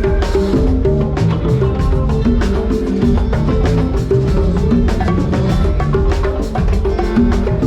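A band playing loudly with drums, hand percussion and bass under repeating melodic notes, without vocals.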